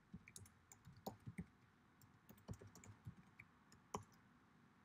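Typing on a computer keyboard: an uneven run of soft key clicks, with one sharper keystroke about four seconds in.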